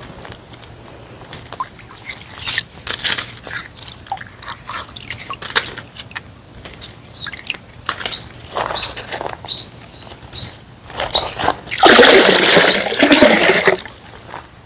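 Water splashing and pouring in a stone basin: a few light drips and plinks, then a loud rush of water for about two seconds near the end.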